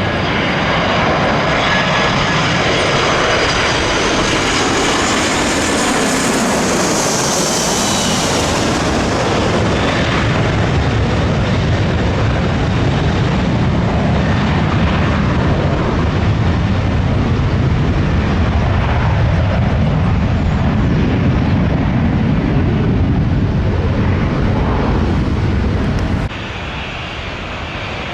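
Jet airliner passing low overhead on landing approach: a high engine whine slides down in pitch as it goes by, then a long low rumble. The sound cuts off abruptly near the end.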